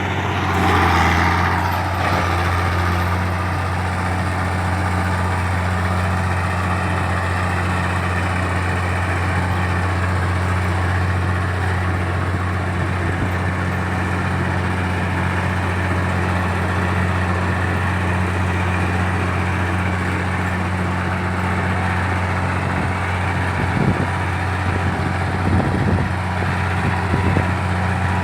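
Komatsu D60-8 bulldozer's diesel engine running steadily, with a brief swell in power in the first couple of seconds and a few short knocks near the end.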